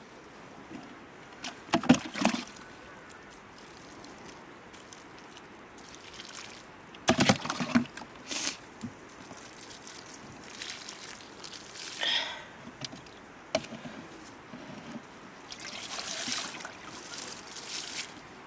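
Water poured from a small plastic cup onto soil and seedlings, trickling and splattering, with a few short, louder splashes as the cup is dipped and emptied again from a plastic bucket.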